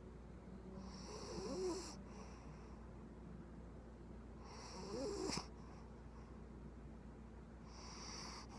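Puggle puppy snoring: three raspy snore breaths about three seconds apart, the first two with a wavering squeaky whistle.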